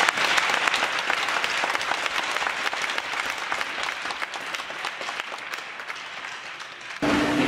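Crowd applauding, the clapping slowly dying away over several seconds, until a cut near the end brings in a louder, different sound.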